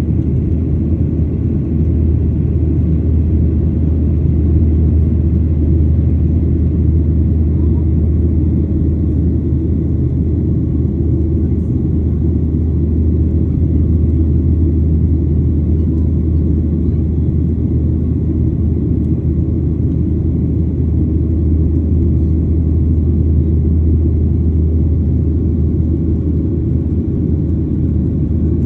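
Steady low rumble, even throughout with no distinct events.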